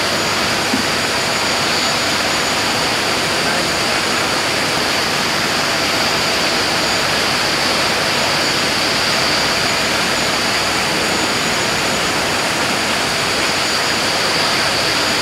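Steady rushing noise of falling water, even and unbroken, with a high steady hiss on top.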